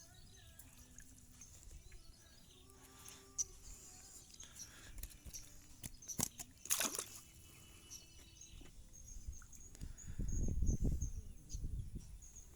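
Water sloshing and small splashes at a fish pond's edge, with scattered clicks and knocks and a burst of low rumbling about ten seconds in.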